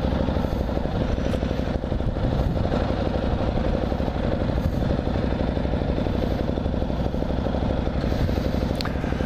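Motorcycle engine running steadily, its even firing pulses unbroken throughout.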